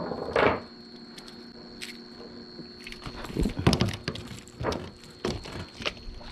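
A small speckled trout flopping on wooden pier boards: a quick run of wet slaps and knocks about three seconds in, then single thumps about every half second.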